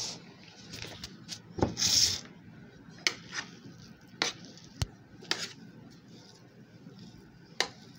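Plastic spatula scraping minced meat out of a stainless-steel chopper bowl into a glass bowl: soft scrapes and a handful of sharp taps as the spatula knocks against the bowl rims.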